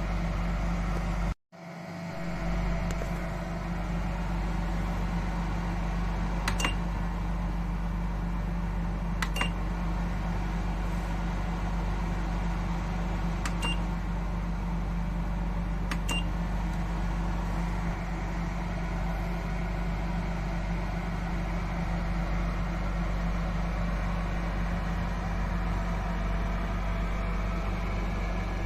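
AooDen ceramic fan heater running with a steady fan hum and electrical drone. Four short beeps sound a few seconds apart, the kind the heater gives when its buttons or remote are pressed.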